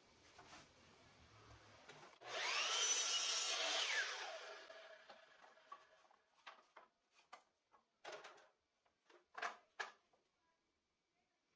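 Miter saw motor spinning up with a rising whine, cutting through a small plywood piece, then winding down with a falling whine. Afterwards, several light knocks of plywood pieces being picked up and stacked on the saw table.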